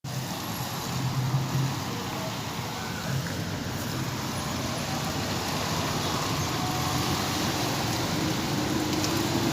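Steady rain mixed with road traffic: a continuous hiss of rain and wet road with a low hum of passing vehicles.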